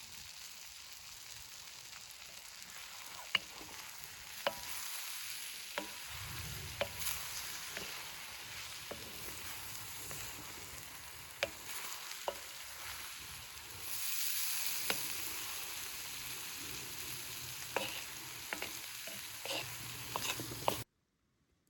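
Chicken pieces sizzling in a sac, a convex metal griddle-pan, while they are stirred, with sharp clicks of a utensil against the pan now and then. The sound cuts off abruptly near the end.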